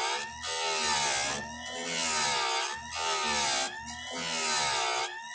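Electric chainsaw chain grinder: the grinding wheel is brought down onto a cutter tooth about five times, roughly once a second. Each pass gives a hissing grind, and the motor's pitch sags under the load and climbs back as the wheel lifts off.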